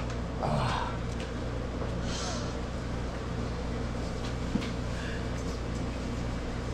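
Steady low mechanical hum of a running engine or motor, with a short rustle about half a second in, a brief hiss about two seconds in, and a few faint knocks.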